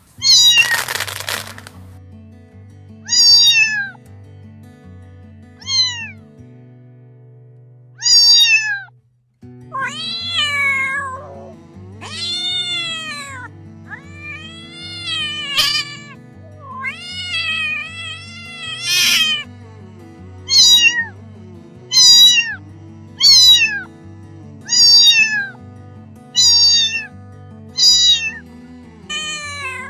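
A cat meowing again and again, about twenty short high meows, most falling in pitch, some longer and arched, spaced a couple of seconds apart at first and coming faster after about ten seconds. Steady background music plays underneath.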